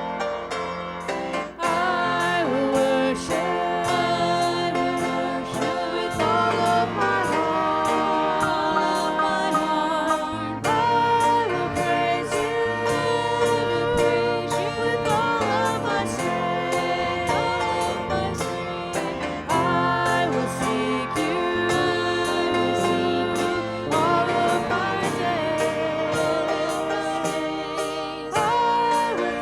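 Music: a song with a wavering sung melody over instrumental accompaniment and a steady beat.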